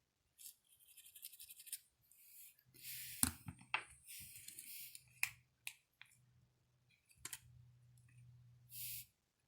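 Faint bench handling of small parts and tools: scratchy rustling, a quick run of ticks about half a second in, and several sharp clicks through the middle, over a faint steady low hum.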